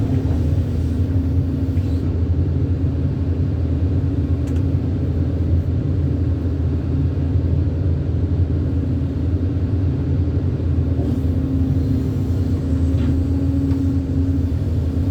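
Heavy diesel engine of an excavator running steadily, a low drone with a steady hum above it.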